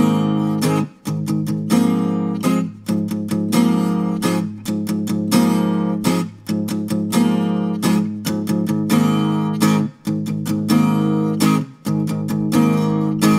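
Guitar strumming chords in a steady rhythm, with a strong stroke about once a second and short breaks between.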